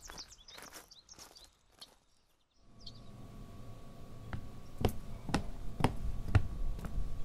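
Footsteps on a paved path at a steady walk, with birds chirping, fading out about two seconds in. After a moment of near silence, footsteps sound on a hard indoor floor about twice a second over a low steady room hum, growing louder.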